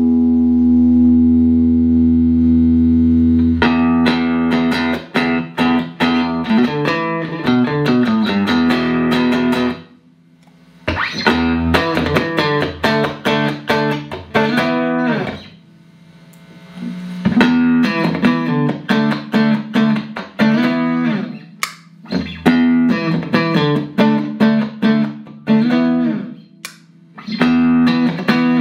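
Clean electric guitar played through a Boss CP-1X compressor and a Boss GE-7 equalizer into Roland JC-120 amps. A held chord rings for the first few seconds, then phrases of quickly picked notes follow, with short pauses between them.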